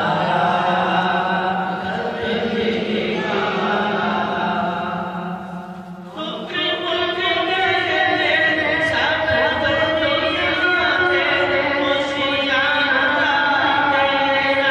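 A man singing an Urdu naat, a devotional Islamic hymn, without instruments. A long held line fades out about six seconds in, and the next line starts straight after.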